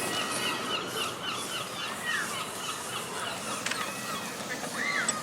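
Birds chirping over steady outdoor background noise: a run of short repeated chirps, with two longer rising-and-falling calls about two seconds in and near the end.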